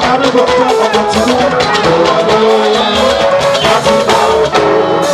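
Upbeat music with a steady percussion beat, shaker and drums, with melody lines running throughout.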